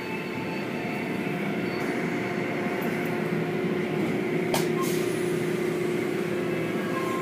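Automatic tunnel car wash running: cloth-strip curtains and water spray working over a foam-covered car, with a steady machinery hum and a sharp click about four and a half seconds in.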